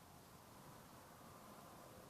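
Near silence: a faint, steady hum with a few held tones, the unexplained "hovering" noise heard from the field.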